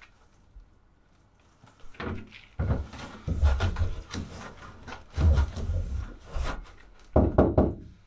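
A gloved hand knocking on a Fiat Ducato's steel side panel that has a heavy self-adhesive sound-deadening sheet stuck to it, giving irregular low, dull thuds from about two seconds in until near the end. It is deep-sounding: the added mass has lowered the panel's drumming tone.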